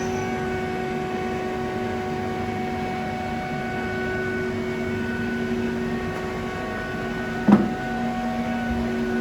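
Biglia B500M CNC lathe running with a steady hum made of several tones. A single sharp clunk about seven and a half seconds in is the loudest moment.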